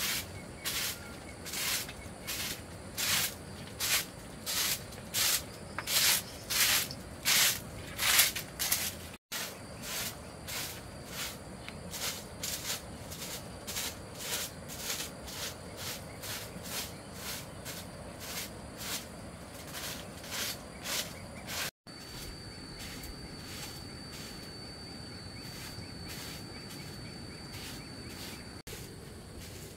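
Repeated sharp strokes, about two a second, become quieter after a cut about nine seconds in and stop at a second cut about twenty-two seconds in. After that an insect keeps up a steady high-pitched call.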